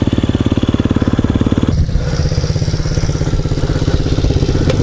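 Dirt bike engine idling, a steady even putter; about two seconds in its note changes abruptly and settles into a steadier, lower pulse.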